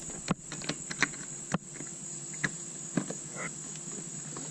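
A handful of sharp plastic clicks and taps as an inflatable kayak's air valve cap is opened and the inflator hose is handled. Under them runs a steady high-pitched insect drone.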